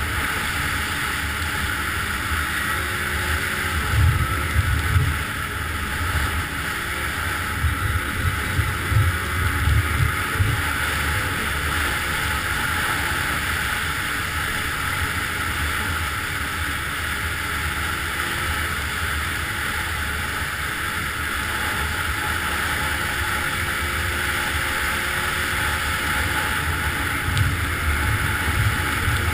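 Snowmobile running at a steady speed, its engine and track giving an even drone. Wind buffets the microphone in low rumbles now and then, strongest a few seconds in and again near the end.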